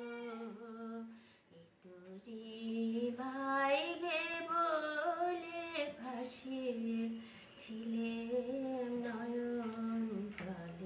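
A woman singing a slow song in long, held, gently wavering notes, with a short break about a second and a half in.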